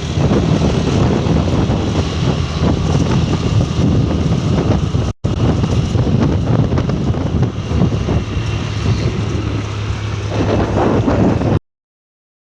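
Loud wind rumble on the microphone over the noise of a vehicle moving along a road. It drops out for an instant about five seconds in and cuts off suddenly near the end.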